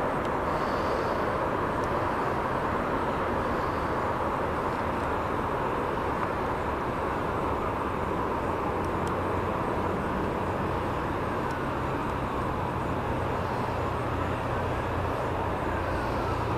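Steady outdoor background noise, an even hiss and rumble with no distinct events; a low hum comes in about eleven seconds in.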